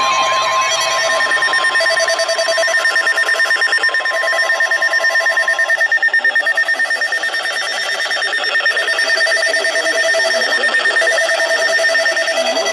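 Emergency alert tones sounding before the spoken warning. A steady beep tone stops about six seconds in, and a fast-pulsing electronic alarm tone carries on through the rest. Here they herald a severe thunderstorm warning.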